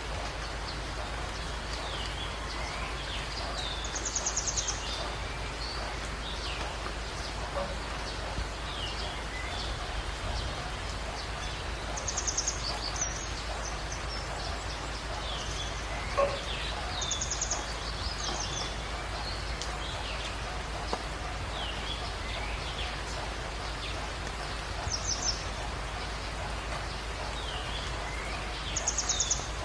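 Jungle birds calling over a steady rain-like hiss: a short, rapid, high-pitched trill comes five times at irregular gaps, among many brief chirps and whistles.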